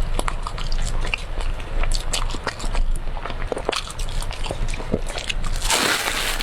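Close-miked chewing of brown sugar cake: a run of small, sticky mouth clicks and smacks, with a brief burst of hiss near the end.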